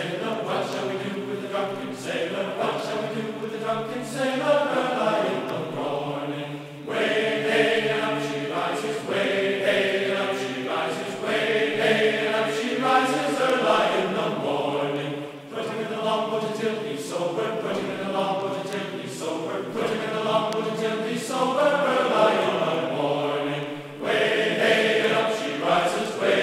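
Background music: a song with voices singing in long phrases that break off every few seconds.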